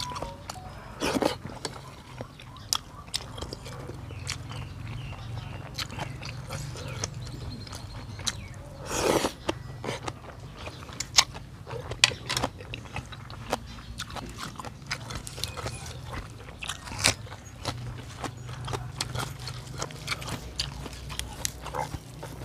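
A person eating noodle soup close to the microphone: wet chewing and smacking with many short clicks, and two longer slurps, one about a second in and one about nine seconds in. A steady low hum runs underneath.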